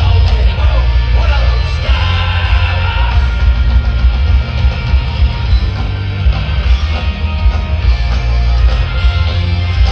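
Loud live rock band playing, with shouted singing over a heavy, booming bass.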